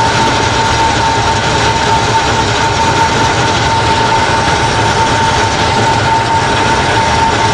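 A 6LN-120 rice huller running steadily under load as hulled rice pours out, a constant mechanical din with a steady whine.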